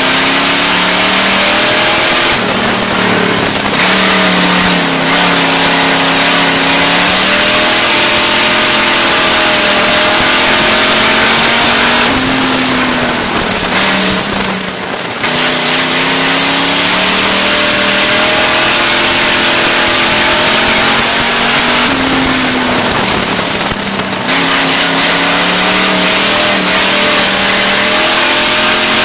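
Dirt-track race car engine heard from inside the cockpit at racing speed, loud over a constant rush of noise. Its pitch climbs on the straights and drops three times as the driver lifts for the turns.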